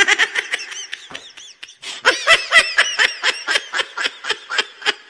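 High-pitched, fast snickering laughter, a string of quick giggles that pauses briefly and then starts again.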